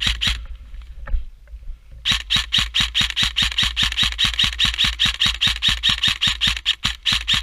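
Airsoft gun firing a long, evenly paced string of shots, about six or seven a second: a brief burst at the start, a pause of about a second and a half, then steady fire from about two seconds in.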